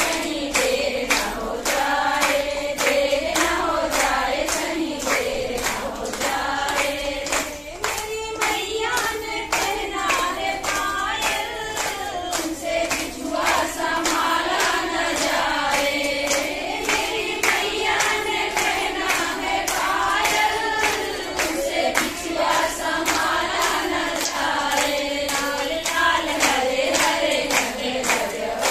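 A group of women singing a devotional puja song together in unison, keeping time with steady hand-clapping of about two to three claps a second.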